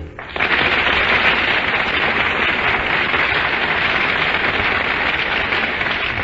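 Studio audience applauding, a steady even clatter of many hands clapping that starts just as the orchestra's final chord stops.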